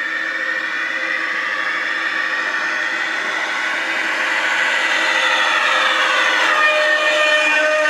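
Gauge 1 model train running on its track, a steady mechanical whir with a constant hum and higher ringing tones that shift in pitch about five seconds in, growing slowly louder.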